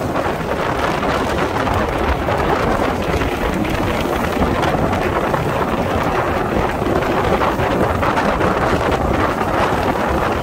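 Roar of the Frecce Tricolori's Aermacchi MB-339 jet aircraft, a steady rushing noise after a pass, with wind buffeting the microphone.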